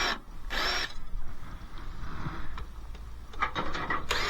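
Cordless drill-driver with a Torx bit running in short bursts, undoing screws from a dishwasher door: a brief spin-up whine about half a second in and again near the end, with faint clicks of handling between.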